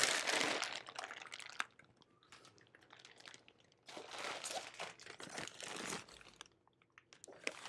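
Plastic shipping bag crinkling as it is pulled off a boxed machine, in two bouts with a pause of about two seconds between them.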